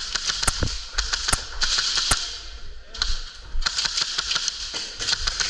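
Airsoft guns firing quick strings of sharp shots, with a lull of about a second in the middle before the shooting picks up again.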